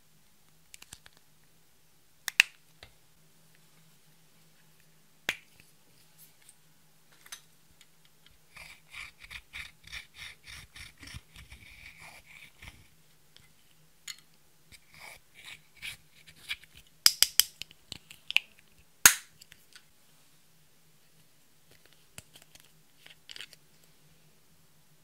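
A tool scraping pressed eyeshadow out of a plastic makeup palette in quick strokes, with sharp clicks of the plastic cases here and there, the loudest near the end. A faint steady low hum runs underneath.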